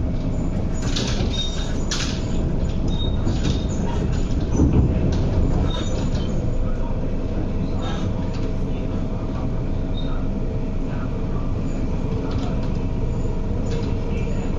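Inside a Metro-Cammell MLR-train, an electric multiple unit, running at speed. There is a steady rumble of wheels on track under a constant hum, with scattered clicks and knocks, and the rumble swells briefly about four to five seconds in.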